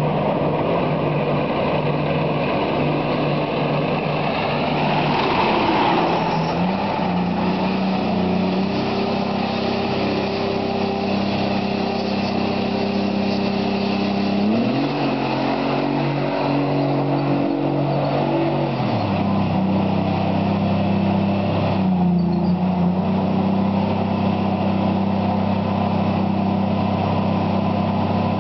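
Yatagan main battle tank's 6TD-2 two-stroke diesel engine running as the tank drives up and past at close range. Its pitch steps up about halfway through and drops back a few seconds later.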